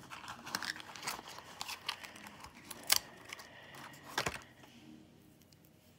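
Fingernails prying engraved rune stones out of a fitted wooden tray, where glue dots hold them down: a string of small clicks and taps of stone on wood and nails on stone, with two sharper knocks about three and four seconds in, then it goes quiet.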